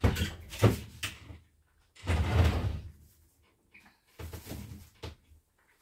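Household doors and cupboards being handled: a few sharp knocks and clunks in the first second, a heavier low thud about two seconds in, and more clunks near the end.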